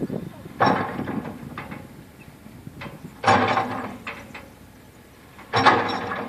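Three heavy blows about two and a half seconds apart, each ringing briefly, typical of a tractor-mounted post driver pounding wooden trellis posts, with a machine engine running low underneath.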